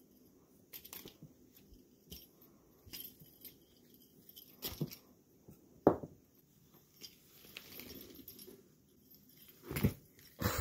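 A kitten playing with a wand toy: scattered scuffs and rustles of paws on carpet and against a fabric bed skirt, with a few sharper thumps as it pounces, the loudest about six seconds in and another near the end.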